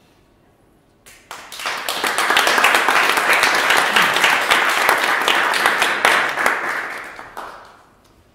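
Audience applauding. The clapping starts about a second in, builds to a full round, then dies away near the end.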